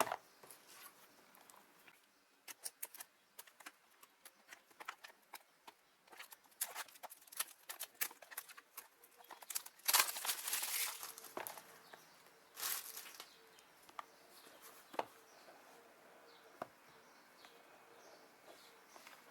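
A speed cube's box and packaging being handled and opened: a string of small clicks and taps with rustling, and two louder crinkling rustles about ten and twelve seconds in.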